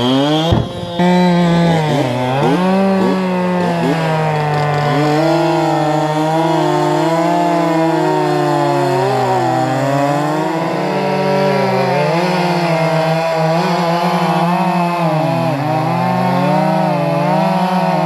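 Two gas chainsaws running under load as they cut through a felled conifer log. The engine pitch wavers up and down as the chains bite into the wood.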